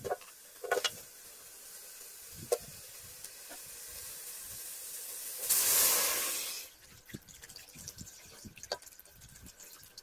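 Chopped lemongrass, garlic and galangal knocking lightly into an aluminium cooking pot a few times, then a hiss that builds slowly and swells into a loud hiss for about a second before cutting off suddenly.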